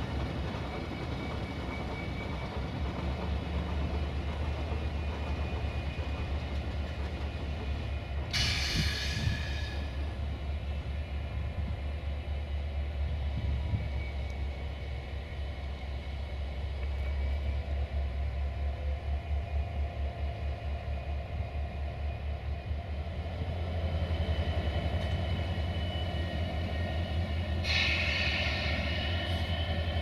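060-DA1 (LDE2100) diesel-electric locomotive's Sulzer engine running with a steady low drone that swells after about 23 seconds. Two short air hisses come about 8 seconds in and near the end.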